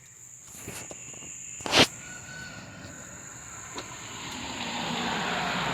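A vehicle drawing nearer, its noise building steadily over the last couple of seconds, over a steady high drone of insects. A single sharp knock about two seconds in is the loudest sound.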